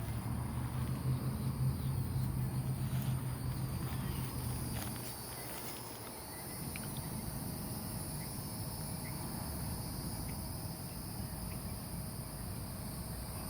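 Cicadas calling in a steady, high-pitched chorus that does not let up. A low hum sits underneath for the first five seconds or so, then fades.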